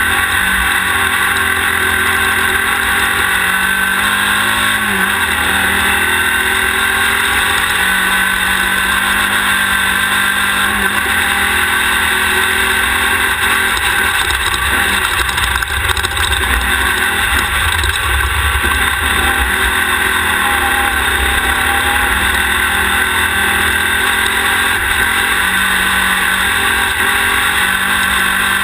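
Class 1600 desert race car's air-cooled 1600 cc Volkswagen engine running hard, its pitch rising and falling with the throttle, over a steady rushing noise. The sound is picked up by a camera on the rear of the car, close to the engine.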